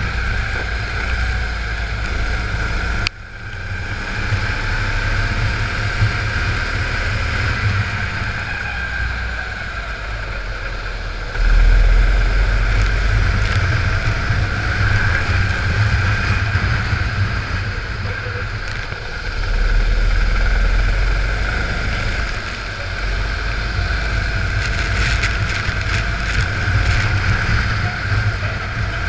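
Go-kart engine running under racing load, heard from an onboard camera, with heavy wind buffeting on the microphone. The sound drops out briefly about three seconds in.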